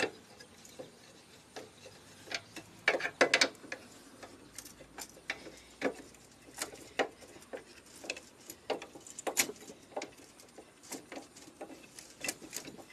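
Car jack being cranked down to lower the car onto its spare tire: irregular metallic clicks and rubbing from the jack mechanism, with a louder cluster of knocks about three seconds in.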